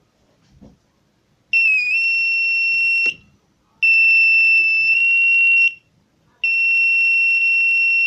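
5V buzzer of a laser-and-LDR door alarm circuit sounding three times, each a steady high-pitched beep of one to two seconds with a short gap between. Each beep is the alarm going off when the light to the LDR dark sensor is cut.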